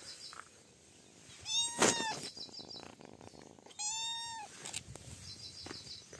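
A cat meowing twice, about two seconds apart, the first call the louder.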